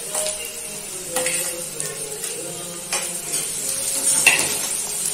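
Metal spoon scraping and knocking against a kadhai as chopped onions and green chillies are stirred, over a steady sizzle of frying on high flame. About four sharp knocks of the spoon on the pan stand out.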